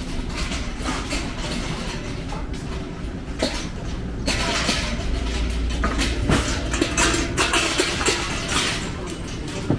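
City street ambience: a steady low rumble of traffic, with a hiss that gets louder about four seconds in and scattered short knocks and clatter.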